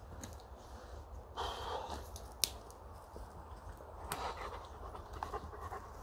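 A Weimaraner dog panting, with a single sharp click about two and a half seconds in.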